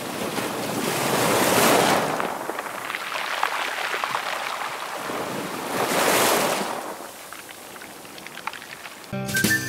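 Sea waves surging onto a shore, two big swells of surf about four and a half seconds apart, each fading to a hiss. Music with a beat starts near the end.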